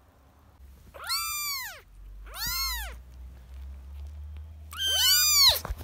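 Kitten meowing three times: high-pitched calls that each rise and fall in pitch.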